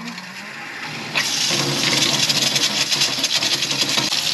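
Kitchen faucet opened, water starting to stream into a stainless steel sink about a second in and running steadily, with the 12-volt RV water pump humming underneath as it runs to supply the tap.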